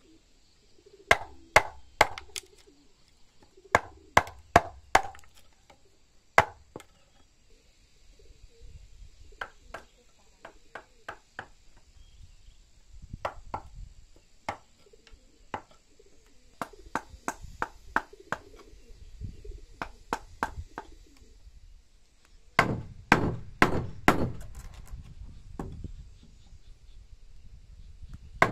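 Wood chisel being struck to cut a mortise into a timber beam: sharp knocks in quick groups of two to four with short pauses between, the hardest run of blows coming near the end.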